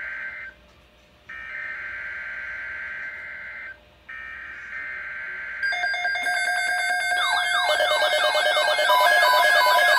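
Emergency Alert System SAME header: three buzzy digital data bursts about two and a half seconds each with short gaps, encoding a new severe thunderstorm watch alert. About six seconds in, a louder layered electronic alert tone with rapidly warbling, sweeping pitches starts.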